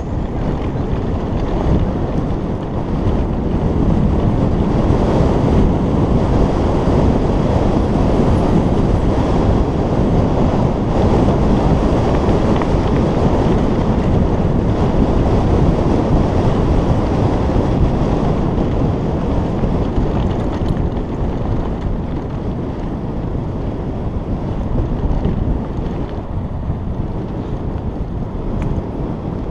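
Wind buffeting the microphone of a bicycle-mounted camera while riding a dirt road, mixed with the rumble of tyres on gravel. It is a steady, low rush that swells a few seconds in and eases off somewhat toward the end.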